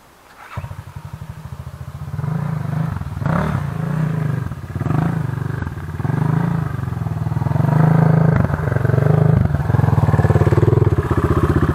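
Enduro dirt bike engine revving in repeated throttle surges as the bike is ridden, coming in about half a second in and growing louder toward the end as it comes close.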